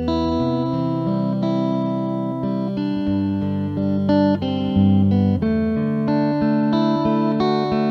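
Instrumental electric guitar music: the guitar plays long held melody notes over a bass line that steps to a new note every second or so.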